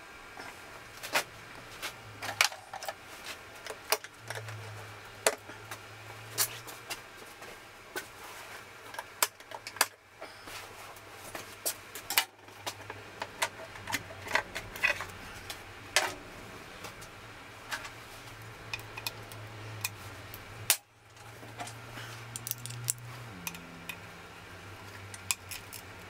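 Irregular metallic clicks, clinks and rattles of hands and tools working fasteners and parts while taking the top off a motorcycle's air filter housing, over a low steady hum.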